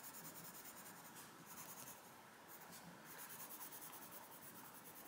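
Faint scratching of a Black Widow coloured pencil on paper as a light layer of colour is shaded on.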